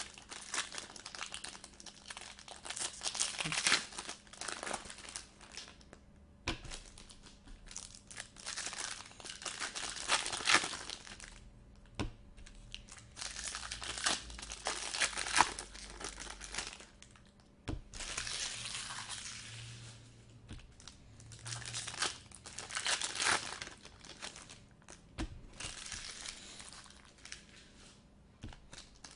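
Foil wrappers of 2018 Bowman Chrome trading-card packs crinkling and tearing as the packs are opened and handled, in bursts with short pauses between them.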